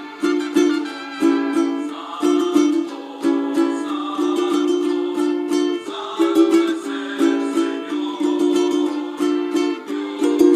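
Ukulele in re-entrant tuning strummed in mariachi vihuela style: quick, rhythmic chord strums with the chord changing every second or two, in imitation of a vihuela.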